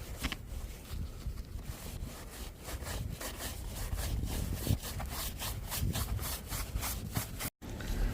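Snow brush sweeping heavy, fresh snow off a car's body in quick, repeated strokes, a brushing, scraping rasp that grows stronger partway through. The sound cuts out for an instant near the end.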